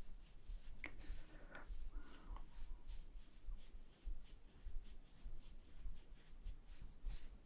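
Fingertips rubbing in circles over the hair and scalp at the back of the head: a faint, scratchy rustle that repeats about three times a second.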